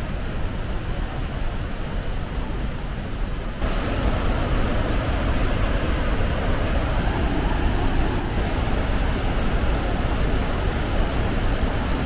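Steady roar of the Iguazu Falls, a dense even rush of falling water, turning suddenly louder and brighter about three and a half seconds in.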